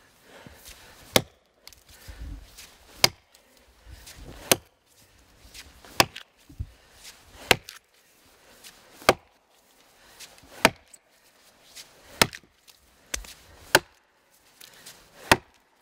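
Axe chopping into a log, about ten even strokes roughly a second and a half apart, each a sharp chop as the bit cuts a notch and throws chips.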